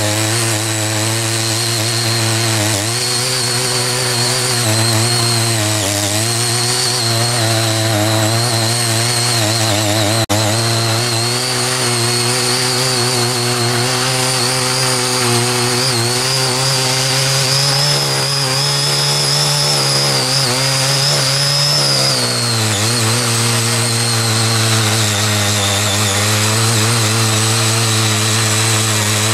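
Small engine of a CY50 garden tiller running steadily under load while tilling, its speed wavering slightly and sagging a little about 22 seconds in. A single sharp click sounds about 10 seconds in.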